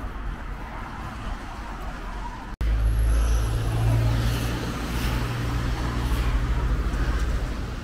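Quiet street ambience for the first couple of seconds. After an abrupt cut, road traffic with cars driving past close by and a steady low engine rumble.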